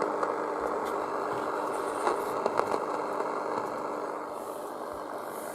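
CAT RX801 analogue portable radio's speaker hissing with static, with a few crackles and a faint steady whistle underneath, as it receives no clear station.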